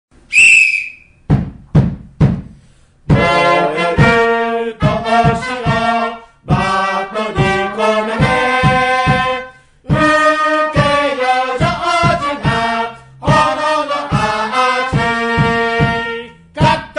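Japanese baseball cheering-squad trumpets playing a hitting march, backed by drum beats. It opens with a short high whistle and three single drum strokes, then the trumpet melody comes in about three seconds in, punctuated by regular drum hits.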